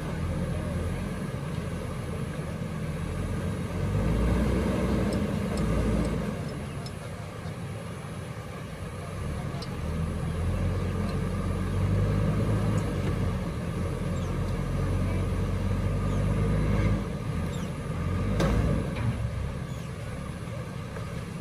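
Diesel engines of a JCB 3DX backhoe loader and a stuck Tata 1613 tipper truck labouring as the backhoe drags the truck out of the river. The low engine note swells about four seconds in and again from about ten to seventeen seconds, with a sharp knock near the end.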